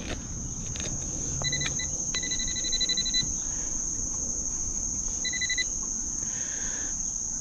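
A NoktaMakro PulseDive pinpointer beeps in three bursts of quick, high pulsing tones, the longest about a second, as it closes in on a buried metal target in the dug hole. Crickets chirp in a steady high drone throughout.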